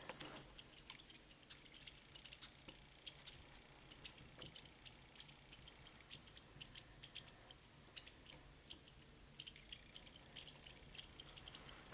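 Near silence with faint, scattered small ticks and clicks.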